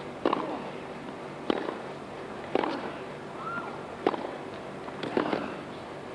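Tennis rally: rackets striking the ball back and forth, five sharp pocks about a second or so apart.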